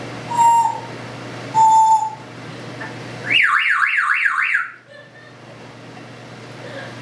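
African grey parrot whistling two short steady beeps, then mimicking a car alarm with a loud warbling siren that sweeps rapidly up and down, about four times a second, for over a second.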